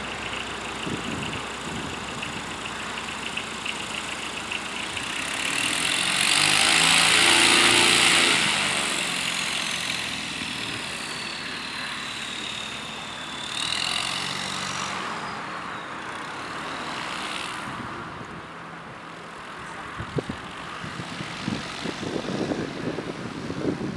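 The automotive diesel engine of a Jodel D11-based light aircraft runs steadily at low power, turning its propeller in direct drive. From about six to ten seconds in, a louder passing engine swells and fades with a falling pitch, and a few short knocks come near the end.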